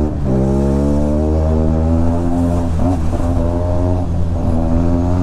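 Benelli TNT 300's parallel-twin engine through a loud exhaust, cruising at a steady, even pitch after a slight rise at the start.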